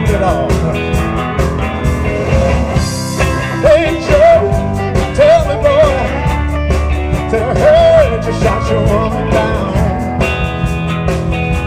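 Live electric blues band playing over a steady drum beat. About three seconds in, an electric guitar takes a lead line of bent, wavering notes.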